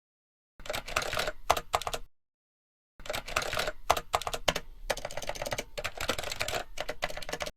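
Rapid, dense clatter of small clicks like fast typing, in two runs: a short one of about one and a half seconds, then after a gap of dead silence a longer one of about four and a half seconds that cuts off abruptly.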